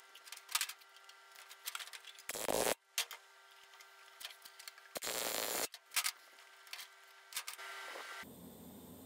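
Workshop handling noises: scattered clicks and taps, with two short hissing bursts, one about two seconds in and a longer one about five seconds in.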